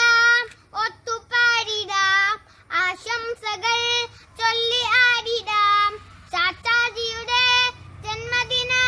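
A young boy singing a song solo, in short phrases of held notes with brief pauses for breath between them.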